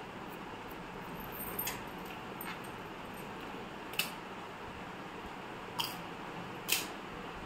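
Eating noises: a handful of short, sharp mouth clicks and crunches of chewing, spaced a second or two apart, over a steady background hiss.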